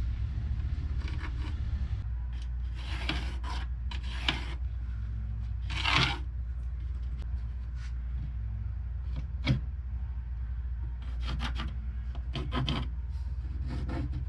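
Irregular short scraping and rubbing strokes on wood, over a steady low hum.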